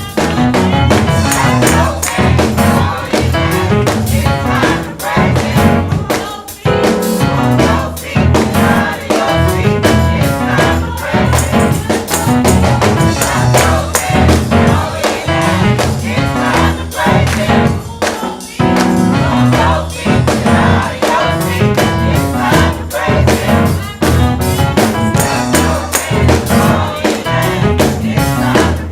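Gospel praise-and-worship music: singers over a band with a steady percussive beat.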